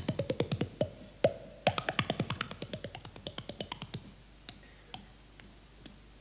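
Hand-and-mouth body percussion in the hambone style: a rapid run of sharp pops and clicks as cupped hands strike the cheeks and mouth, some pops bending down in pitch. The pops come thick and fast at first, then thin out to a few scattered taps after about three seconds.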